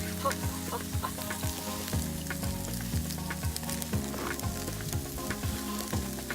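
Hamburger steak sizzling in sauce in a pan over a campfire, with a continuous scatter of small pops and crackles. Background music with a steady beat plays underneath.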